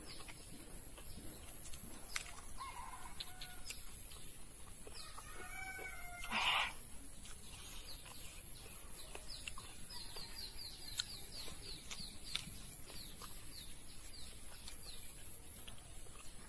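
Chickens clucking in the background, with a short, harsh squawk about six and a half seconds in, then a quick run of high, falling chirps. Faint clicks from fingers working rice on a plate.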